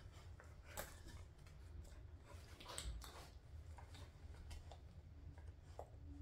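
Faint, scattered rustles and soft clicks as a dog chews and tugs a hanging rope toy while wriggling on its back on bedding, over a low steady hum.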